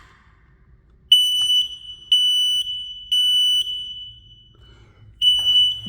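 Carbon monoxide detector sounding its alarm on the test button: three loud, high beeps about a second apart, a short pause, then the pattern starting again near the end. It shows the unit is powered and its battery works.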